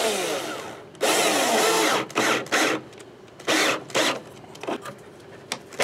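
Cordless drill driving screws through a metal mounting plate into a wooden beam: one long run of about a second, then several short trigger bursts as the screws are seated.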